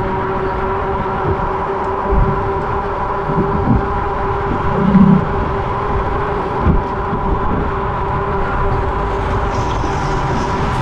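Paselec X7 Pro fat-tyre electric bike cruising at steady speed: a steady whine from the drive and tyres over wind rumble on the microphone, with a brief louder low hum about five seconds in.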